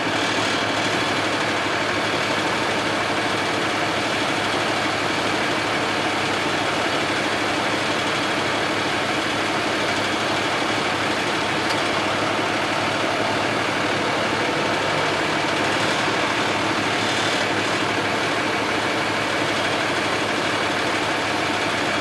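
An engine idling steadily, an even, unchanging drone.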